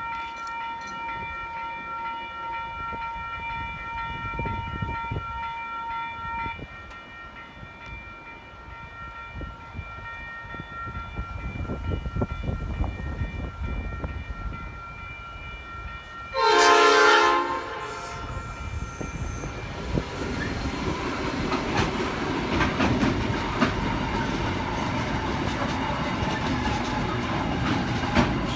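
Level-crossing warning bells ringing steadily, then the horn of 81 class diesel-electric locomotives sounding loudly for about a second and a half. The locomotives and a string of empty cement wagons then run through the crossing, rumbling and clattering over the rails.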